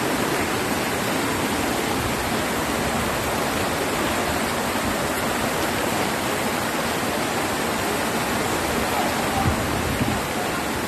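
Steady, unbroken rush of water during a tropical storm, with two brief low bumps near the end.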